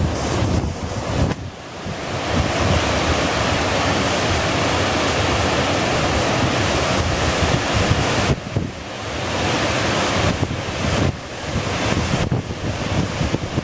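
Wind buffeting the microphone in uneven gusts over the steady rush of water pouring over a dam spillway.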